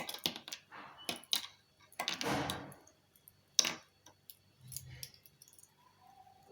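Small plastic and metal kit parts being handled: a string of sharp clicks and light rattles, with a longer rustle about two seconds in.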